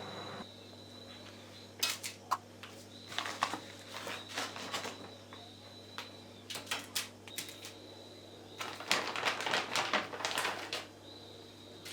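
Irregular light clicks and taps of small objects being handled and set down, coming in small clusters, with the busiest run of taps about nine seconds in. A faint high steady tone comes and goes underneath.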